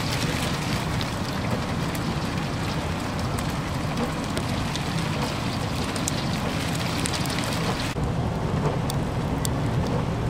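Steady wind noise on the microphone with the hiss of falling sleet and scattered light ticks of pellets. The background changes abruptly about eight seconds in.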